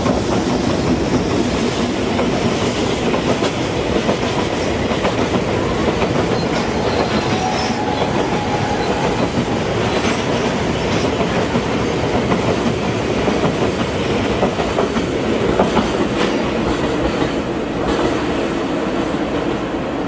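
Freight train running past close by, its wheels clattering over the rail joints in a steady stream of clicks, with a thin wheel squeal about seven seconds in.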